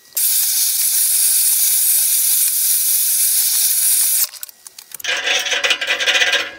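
Handheld gas torch flame hissing steadily while sweat-soldering a copper pipe into a brass ball valve, cutting off about four seconds in. A shorter, rougher noise follows about a second later.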